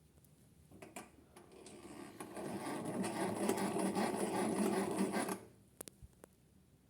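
Small electric motor of a vintage Hoovermatic twin tub toy washing machine spinning the spin-dryer drum: the whir builds up over about a second, runs steadily for about three seconds, then stops suddenly, followed by a few light clicks.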